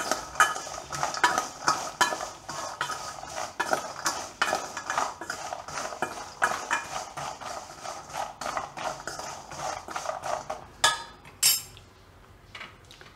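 Fried cashews being tossed with spices in a stainless steel bowl: a busy, rapid rattle of nuts clattering against the steel. It stops about eleven seconds in, after a couple of sharper clicks.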